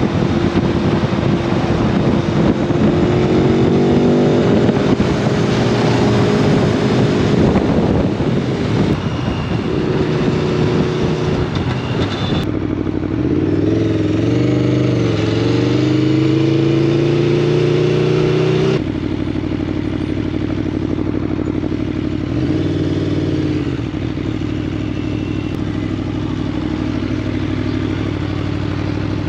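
Aprilia Tuono V4 motorcycle engine through an SC Project carbon slip-on exhaust, running under way with its pitch rising and falling as the throttle opens and closes. The sound changes abruptly twice.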